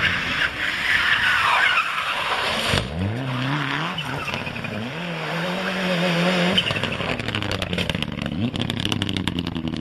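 Mitsubishi Lancer Evolution rally car skidding, its tyres squealing, then its engine revving up and down. Near the end comes a fast run of sharp clicks and crackles.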